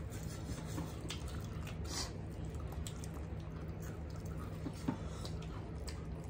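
Faint cracking and wet squishing of hollow gol gappa (pani puri) shells being broken open by thumb, filled and dipped into spiced water. There are a few small clicks over a steady low room hum.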